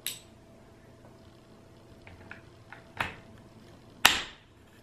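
Three sharp clacks as a socket tool and the rifle's metal parts knock together while the air-tube end plug is being fitted. The first comes right at the start, the second about three seconds in, and the loudest a second later, each ringing briefly.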